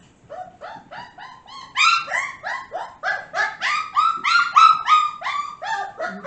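A four-to-five-week-old puppy yipping over and over, a fast string of short, high-pitched yips at about four a second, which grow louder about two seconds in.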